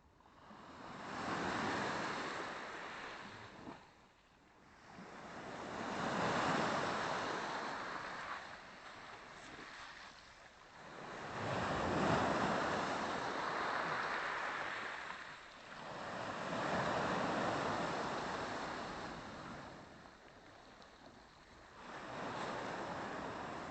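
Small Black Sea waves breaking and washing up the shore on a calm day, the surf swelling and ebbing about five times, roughly every five seconds.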